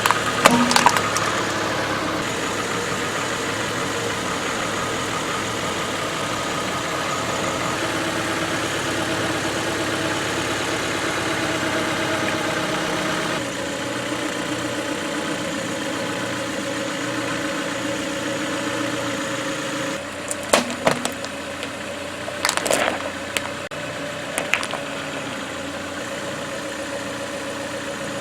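A car engine idling as the tire creeps forward, with a few short sharp cracks and crunches of objects breaking under the tire: one just after the start and a cluster about two-thirds of the way through. The engine hum changes tone about halfway.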